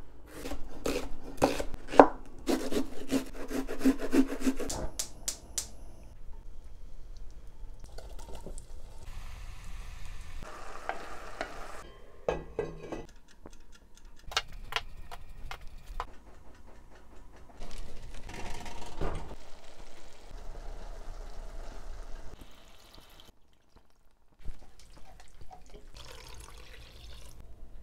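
A series of kitchen sounds: a chef's knife chopping onion on a wooden cutting board in quick strikes for about the first five seconds, later the clicks of a wind-up kitchen timer being turned, and near the end sliced onions being stirred with a wooden spoon as they cook in a pot.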